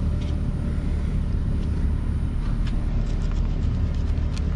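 A steady low rumble runs throughout. Over it come a few faint scrapes of a fillet knife cutting down along a hardhead catfish's back on a plastic cutting board, most of them in the last second and a half.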